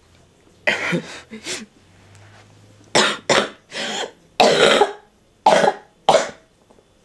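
A woman coughing, about eight short coughs in bunches, with pauses of a second or so between them.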